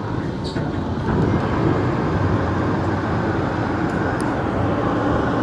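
New York City subway train running past with a steady rumble, a couple of faint clicks heard over it.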